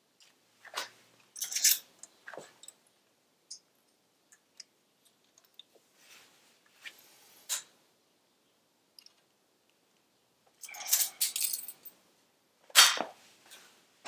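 Small metal parts handled by hand at an exhaust spring tensioner and its hooks: scattered light clicks and clinks, a flurry of rustling and clinking about eleven seconds in, and one sharp, loud click shortly after.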